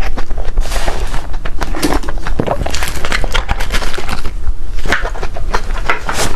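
Close-miked eating of cake: a steady run of crunchy, crackling bites and chewing.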